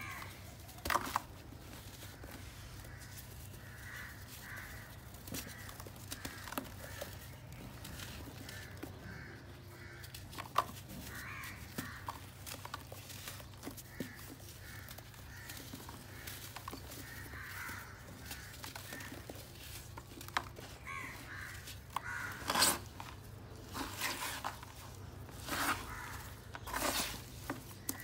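Wet soil and mud squelching as it is trodden by a bare foot and worked by hand in a plastic tub, with several louder wet squelches near the end. Crows caw repeatedly in the background.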